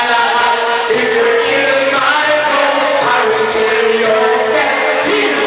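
Several men singing together into microphones over loud music, the voices holding long notes.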